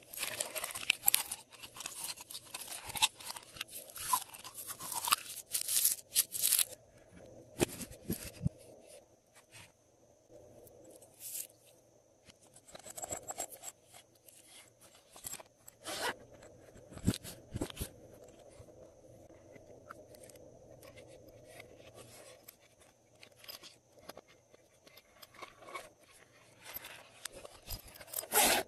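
Clear glossy slime mixed with small foam beads, squeezed and pressed by hand. It crackles and crunches densely for the first several seconds, then gives only scattered sticky pops and taps, with a louder burst of handling noise near the end.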